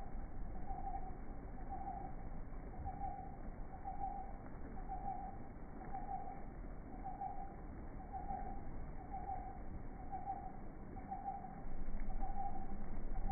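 A steady run of mid-pitched hooting tones, about one a second and each about half a second long, over a low rumbling noise that grows louder near the end.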